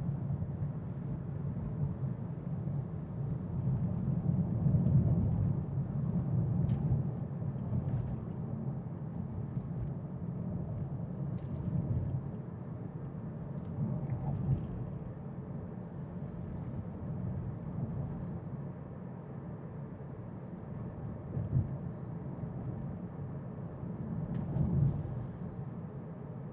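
Road and tyre noise inside a moving electric car's cabin: a steady low rumble with a few faint ticks.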